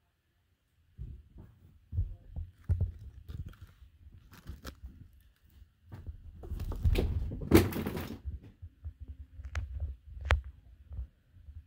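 A cat moving about on the mattress right beside the phone: irregular muffled thumps and rustling starting about a second in, with a few sharper knocks, loudest a little past the middle.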